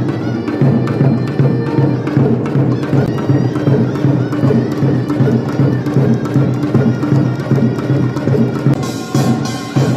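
Korean pungmul percussion music: fast, dense drum and gong strokes over a steady low tone.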